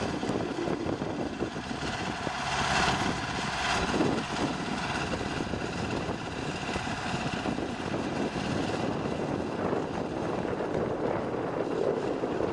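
Strong thunderstorm outflow wind buffeting the microphone: a steady rushing noise that gusts louder about three and four seconds in.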